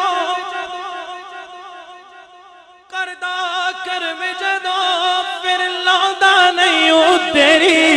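Male devotional singer's voice in a naat recital, holding a long, wavering note that fades away, then starting a new ornamented sung phrase about three seconds in. Low thumps join near the end.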